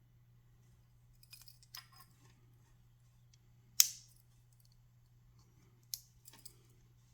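Tools of a 58 mm Victorinox Swiss Army knife being handled and snapped shut against their springs: a few light clicks, then a sharp snap about four seconds in and another near six seconds.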